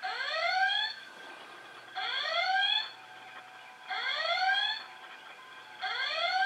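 Playmobil Star Trek Enterprise model playing its red alert klaxon sound effect through its built-in speaker: four rising whoops about two seconds apart.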